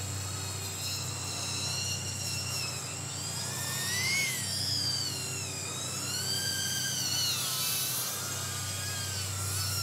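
Happymodel Mobula8 micro FPV quadcopter in flight, its tiny 1103 brushless motors whining in several tones that rise and fall together with the throttle. The whine peaks about four seconds in.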